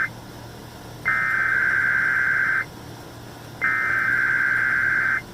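Emergency Alert System SAME header tones broadcast over radio: the tail of one harsh digital data burst, then two more bursts of about a second and a half each, separated by about a second. This header code opens the station's EAS test and comes just before the attention signal.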